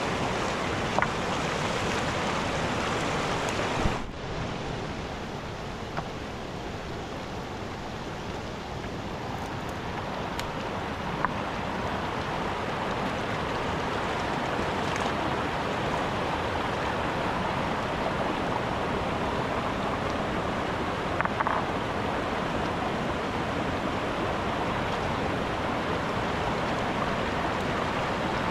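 Rushing water of a mountain river, a steady loud noise, with a few short sharp knocks or clicks scattered through it. About four seconds in the sound breaks off abruptly and resumes slightly quieter, as at an edit.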